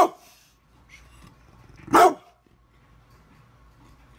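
Brindle pit bull barking twice, two single loud barks about two seconds apart.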